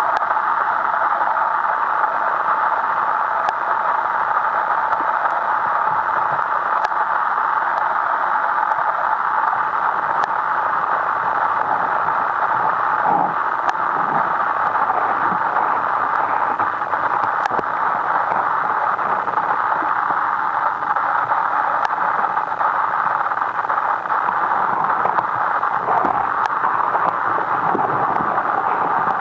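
A steady, even hiss centred in the mid range, with a few faint ticks here and there.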